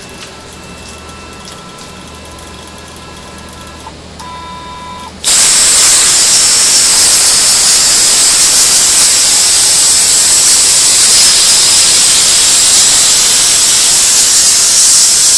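CNC plasma cutter's arc fires about five seconds in with a sudden loud hiss and runs on steadily while the torch cuts 14-gauge sheet steel. Before it there is a quieter steady hum with a faint high whine.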